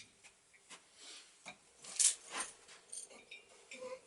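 Light metallic clinks and knocks of tools and metal parts being handled, with a short sharp hiss about two seconds in.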